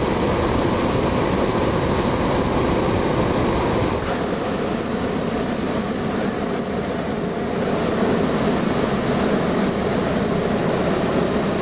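Hot-air balloon propane burner firing continuously, a steady loud rushing noise with a slight dip about four seconds in.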